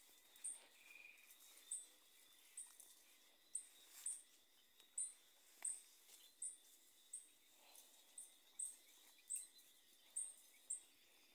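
Faint, short, high-pitched chirps from a small animal, repeating evenly about one and a half times a second over a low steady hiss.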